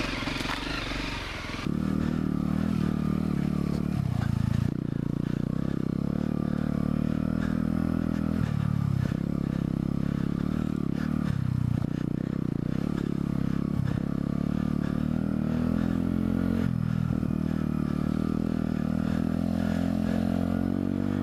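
Small single-cylinder trail motorcycle engine pulling along a muddy lane. Its note rises and falls with the throttle, with several brief dips as the throttle is eased off.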